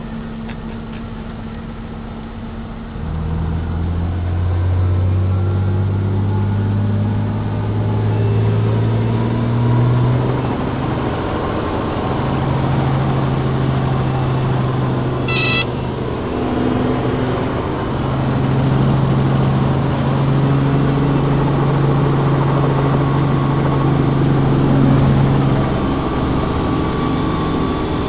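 An engine running; it gets louder about three seconds in, climbs steadily in pitch for several seconds, then holds at an even speed. A short high beep sounds about halfway through.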